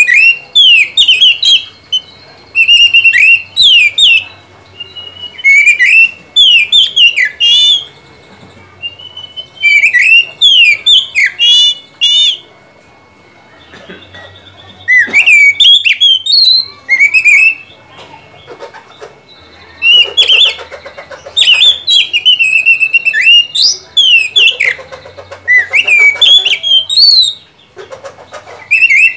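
Oriental magpie-robin singing: loud runs of rapid, varied whistled notes that sweep up and down, in phrases of a few seconds each, broken by pauses of a second or two.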